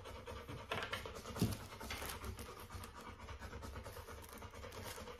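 Rottweiler puppy panting fast and steadily, with a couple of soft knocks about a second in.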